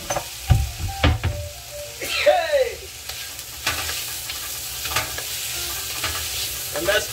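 Vegetables and cauliflower sizzling in a nonstick wok, stirred and turned with a spatula that knocks against the pan several times. A brief pitched sound comes about two seconds in.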